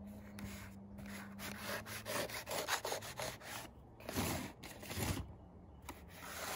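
Kitchen knife slicing through packing tape and cardboard on a shipping box, a run of short scratchy strokes. There are two dull knocks about four and five seconds in.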